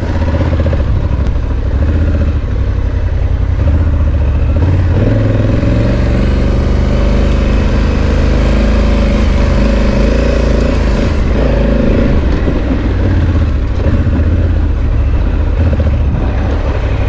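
Honda Africa Twin's parallel-twin engine running while the bike is ridden, its pitch rising and falling with the throttle.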